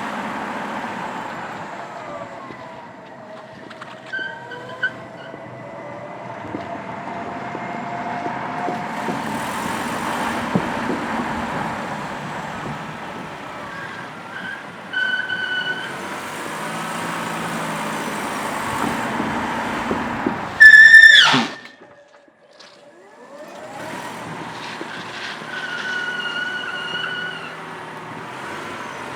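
An electric car's tyres squealing on the painted concrete floor of an underground parking garage, over the steady noise of the tyres rolling. There are several short pitched squeals, and the loudest is a sharp one about twenty seconds in that drops steeply in pitch and cuts off suddenly.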